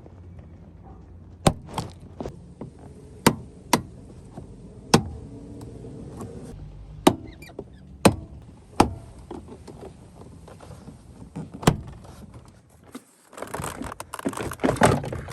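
Plastic door-panel retaining clips popping loose one by one as a minivan's interior door panel is pried off the door, about ten sharp snaps spaced a second or so apart. Near the end comes a longer rustling scrape as the panel comes free.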